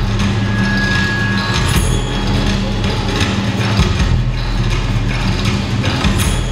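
Loud performance music with a steady low drone and sharp percussive hits at uneven intervals.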